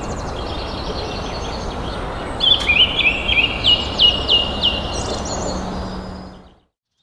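A bird calling in a quick run of repeated chirping notes, starting about two and a half seconds in, over a steady outdoor background hiss. The sound fades out near the end.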